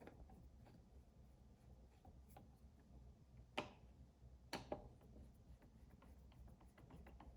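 Near silence with faint scattered ticks and two sharper clicks, about three and a half and four and a half seconds in: small handling clicks while fastening an M.2 SSD onto a motherboard.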